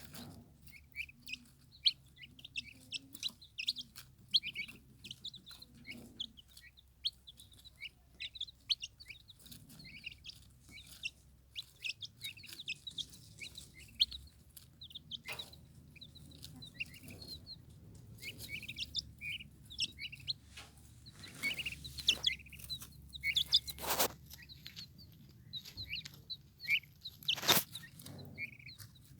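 Young turkey poults peeping continually in short, high chirps, with a few sharp knocks, the loudest two near the end.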